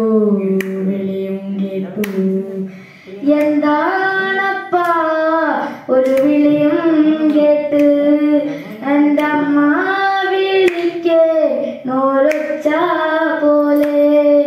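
A young man singing unaccompanied into a microphone, holding long notes that glide from pitch to pitch. Short sharp taps come about once a second.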